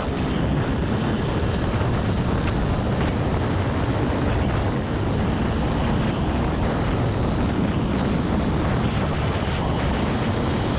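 Off-road vehicle driving steadily at speed, engine and tyre noise mixed with wind buffeting the camera's microphone.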